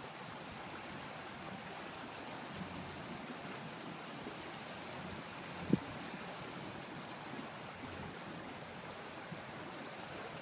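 Steady wash of water along the steel hull of a barge or tugboat underway, an even rushing noise. One short dull thump about halfway through.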